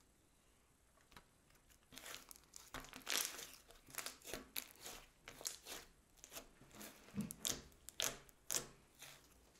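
Glossy slime with makeup mixed in, being stretched, folded and pressed by hand. It gives off a quick, irregular run of sticky clicks and crackles that starts about two seconds in.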